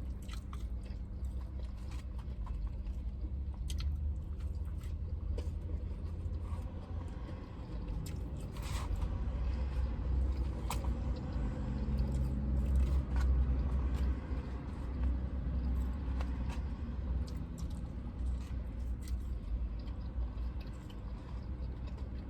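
Close-up chewing and biting of fried food, with scattered small crunches and mouth clicks, over a steady low rumble inside a parked truck's cabin.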